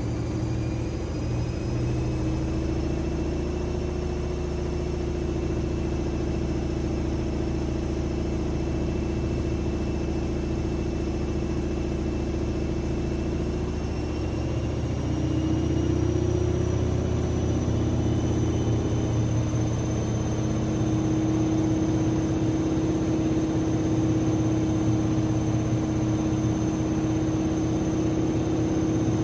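AEG Lavamat 6610 washing machine running, with a steady low hum and a high motor whine slowly rising in pitch as the drum gathers speed. About halfway through, the hum steps up and gets louder.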